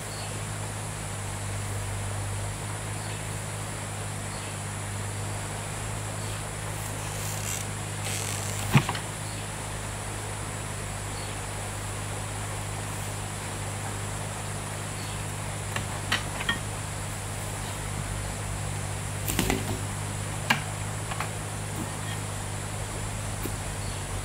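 A motor running with a steady low hum, broken by a few sharp knocks, the loudest about nine seconds in and a cluster near the end.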